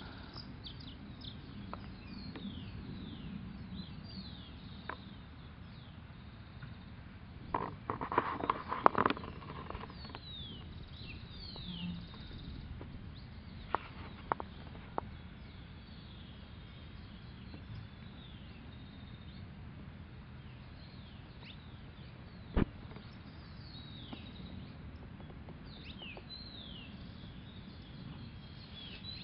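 Small birds chirping repeatedly, quick high down-slurred notes, over a steady low outdoor hum. A brief flurry of knocks and clatter comes about eight to nine seconds in, the loudest thing here, and a single sharp click follows about twenty-two seconds in.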